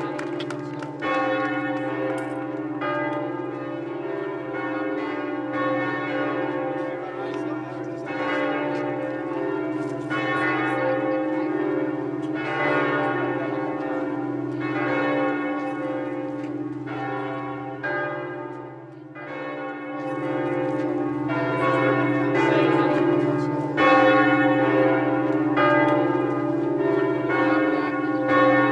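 Large church bells pealing, struck one after another about once a second over a deep hum that rings on throughout, with a short lull about two-thirds through.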